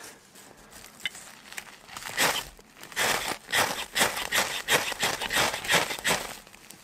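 A quick series of rustles, about three a second, soft at first and growing louder from about two seconds in.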